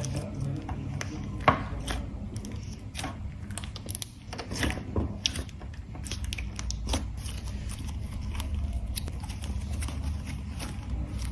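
Slime being squished and worked by hand, giving many irregular sticky clicks and small pops over a low rumble.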